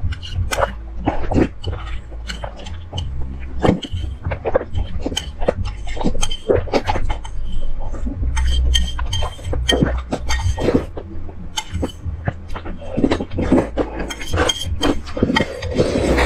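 Close-up slurping and chewing of a mouthful of instant noodles, with irregular clicks of chopsticks against the pan, over a steady low hum.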